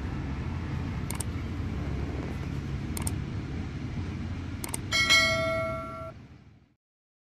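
Subscribe-button animation sound effects: three mouse clicks a couple of seconds apart, then a notification-bell ding that rings for about a second as the loudest sound. A steady low rumble runs underneath, and all sound cuts off abruptly near the end.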